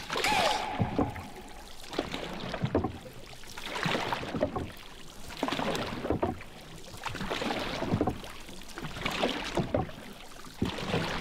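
Wooden paddles of a dugout canoe dipping and pulling through seawater, with a swell of splashing and rushing water about every one and a half to two seconds. There is a short falling squeak near the start.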